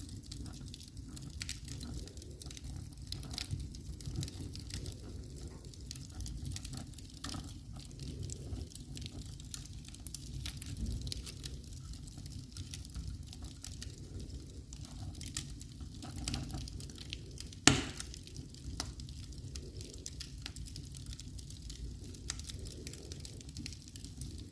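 Wood fire crackling in a fireplace: scattered small crackles and pops over a low steady rumble, with one loud pop about eighteen seconds in.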